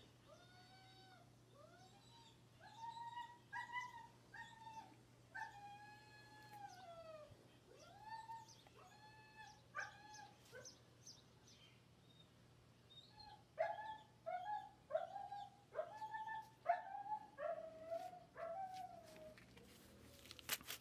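An animal calling over and over: short pitched calls that rise and fall, a couple a second, in two runs with a pause of about two seconds between them.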